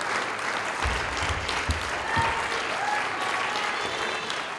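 Theatre audience applauding, many hands clapping steadily, with a few faint voices in the crowd.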